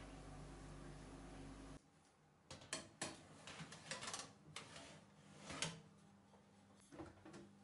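A metal baking tray is slid onto an oven's wire rack, giving a run of scrapes and clinks over a few seconds, loudest about five and a half seconds in. A steady low hum follows.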